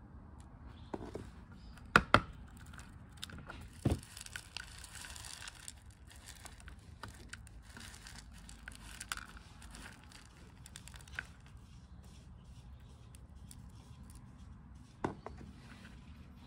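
Gritty potting mix and small clay granules scooped and poured into a small plastic pot: soft rustling and trickling, with a few sharp clicks of the scoop against the pot, two close together about two seconds in, one shortly after and one more near the end.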